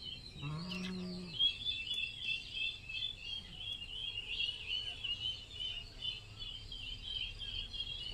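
A steady chorus of small birds chirping, with one short low call about half a second in.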